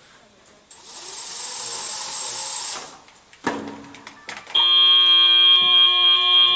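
A hiss for about two seconds, a knock, then a loud, steady buzzer sounding for about three seconds: the FTC match timer's buzzer played through the field speakers.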